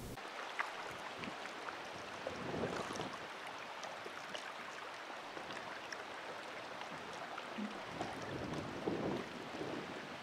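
Choppy open water splashing and lapping, recorded from a boat, with wind on the microphone; the noise swells briefly about three seconds in and again near the end.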